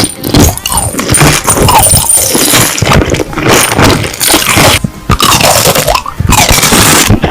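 Close-miked crunching and chewing of crisp food, a dense run of loud crackles and snaps broken by short pauses.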